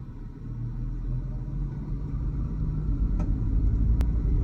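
Dodge Challenger in motion: low, steady rumble that grows louder over the first second, with one sharp knock near the end. The owner is chasing a clunk from the rear left of the car.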